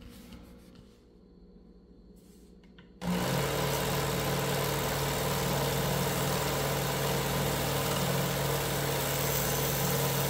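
Electric belt knife sharpener switched on about three seconds in, its motor and abrasive belt running steadily while grinding down the end of a steel screw held in pliers to shorten it.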